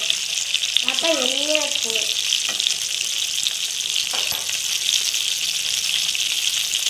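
Masala-coated fish pieces shallow-frying in hot oil in a pan, a steady crackling sizzle.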